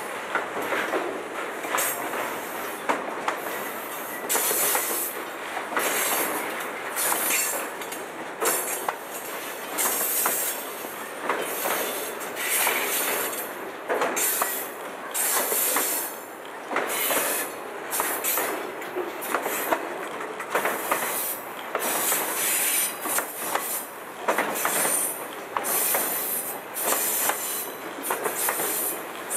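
Freight train cars, centerbeam lumber flatcars and boxcars, rolling past close by. The wheels knock irregularly over the rail joints, with frequent bursts of high-pitched squeal.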